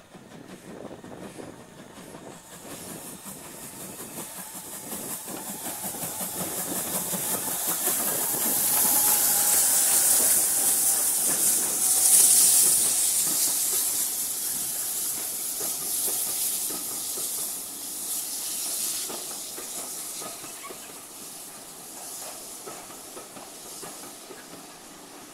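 Steam locomotive and its carriages running into the platform: steam hiss builds, is loudest about halfway through as the engine draws level, then fades as the carriages roll past on the rails.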